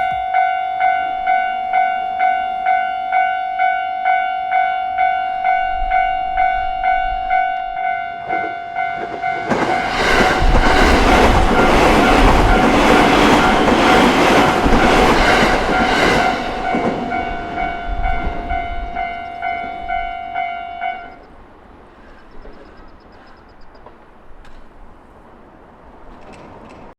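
Japanese level-crossing alarm bell ringing about twice a second as a JR Togane Line electric train passes over the crossing; the train's wheels and running noise swell and fade over about eight seconds in the middle. The alarm stops about 21 seconds in, leaving only faint background sound.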